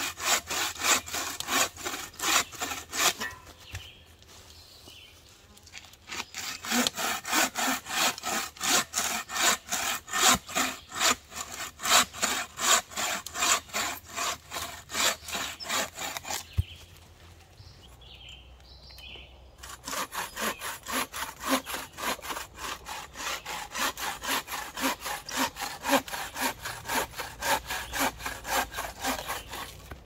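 Bow saw cutting through a dead branch with fast, even back-and-forth strokes. The sawing comes in three spells, broken by two pauses of about three seconds each.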